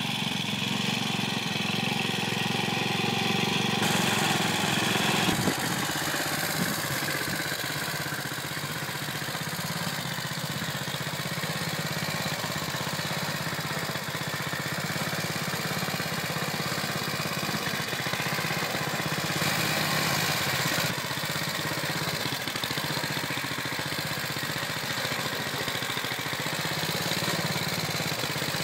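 Walk-behind tractor's small single-cylinder engine running steadily as the machine drives along. Its tone jumps abruptly a few times, about four, five, nineteen and twenty-one seconds in.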